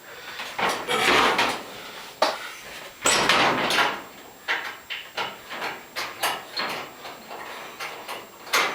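A string of short, irregular handling noises, scrapes and knocks one after another, loudest in the first half.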